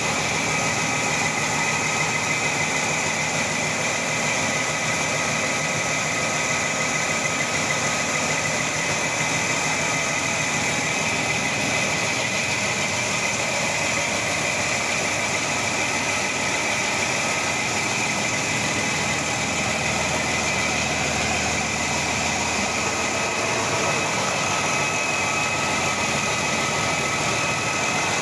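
Cummins ISB 5.9L common-rail inline-six diesel idling steadily on a test run, with a steady high whine running along with it.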